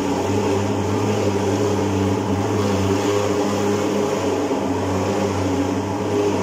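Portable thermal fogging machine running with a steady, even drone while it puffs insecticide smoke for mosquito control.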